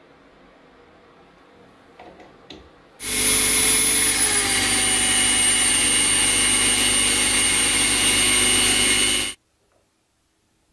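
Dremel 4000 rotary tool with a sanding drum sanding a brass wheel. It starts about three seconds in with a high-pitched whine that drops a little in pitch a second later, and cuts off abruptly after about six seconds.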